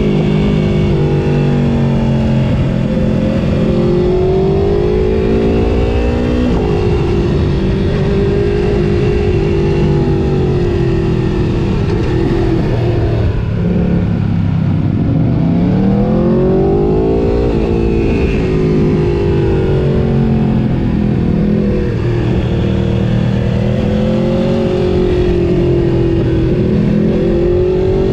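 A sport motorcycle engine being ridden hard. The revs climb and fall over and over with throttle and gear changes, with a sharp drop about six seconds in and a long fall and climb back up around the middle.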